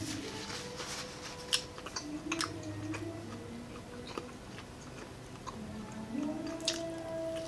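Close-up chewing of crispy breaded fried pork chop, with a few sharp crunches; the loudest comes near the end.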